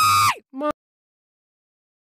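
A voice screaming the drawn-out end of the word "play" on one high held pitch, cut off about half a second in and followed by a brief second yelp. Then dead silence.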